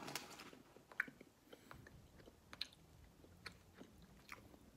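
Faint chewing of a soft jelly bean, with a few short, sharp wet mouth clicks spread over several seconds.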